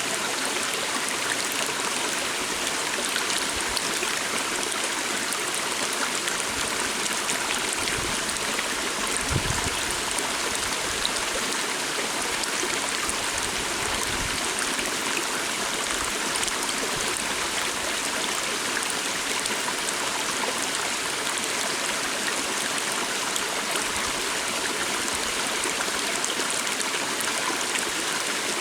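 Steady rushing and babbling of a flowing forest stream, with a few brief low bumps near the middle.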